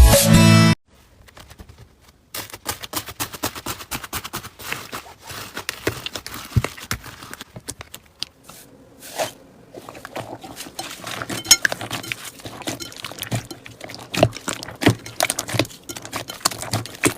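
Slime being pressed and squished by hand: a dense, irregular run of small crackles, clicks and pops. A short stretch of electronic music ends about a second in.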